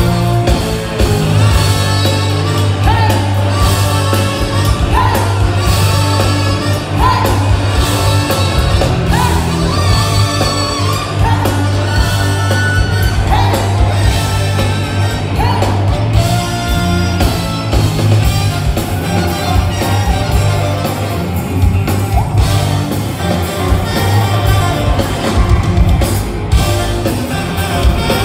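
A live funk brass band plays loudly, with a trumpet on lead over heavy bass and a full rhythm section, heard from within the crowd. Through the first half the trumpet line repeats short rising phrases about once a second.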